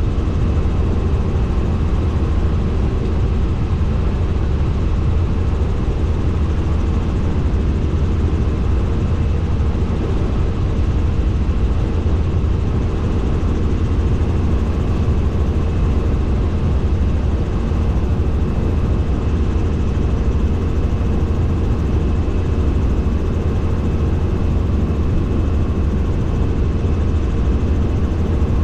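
Helicopter in flight: a loud, steady, unchanging drone of rotor and engine, deepest and strongest at the low end, with a few constant tones above it.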